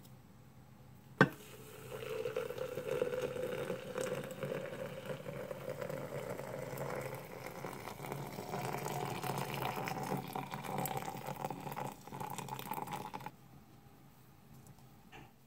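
Water being poured into a glass French press beaker over coffee grounds, the pitch of the filling rising as it goes, then cutting off suddenly near the end. A sharp click comes about a second in.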